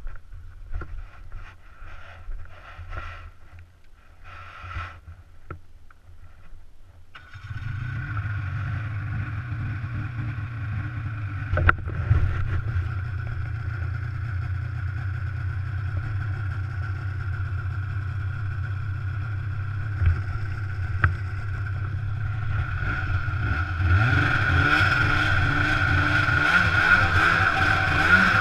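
Snowmobile engine. It comes in suddenly about seven seconds in and runs steadily, with a couple of sharp knocks along the way. Near the end it grows louder and fuller as the sled speeds up.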